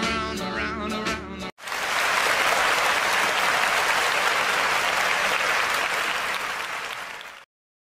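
The last notes of a rock and roll song end about a second and a half in. Then an audience applauds for about six seconds, and the applause cuts off abruptly.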